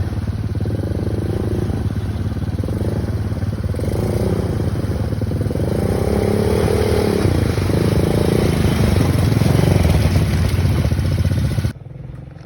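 ATV engine running while the quad is ridden, a steady rapid pulsing with a strong low end. The sound drops suddenly near the end.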